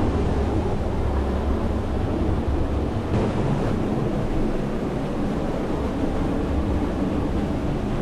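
Fast river water rushing steadily through rock channels, loud and close, with a heavy low rumble.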